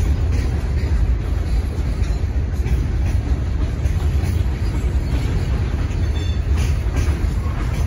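Freight train's boxcars and tank cars rolling past: a steady low rumble with scattered wheel clicks over the rail joints, and a brief high tone about six seconds in.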